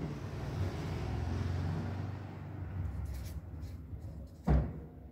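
A low rumbling noise that swells over the first couple of seconds and then eases off, with a few short scratches of a felt-tip marker writing on paper and a brief low thump near the end.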